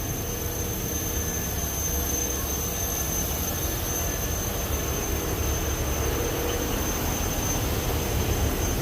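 Compressed-air spray-painting equipment running: a steady hiss with a constant hum and a high-pitched whine from the air compressor feeding the clear-coat spray gun.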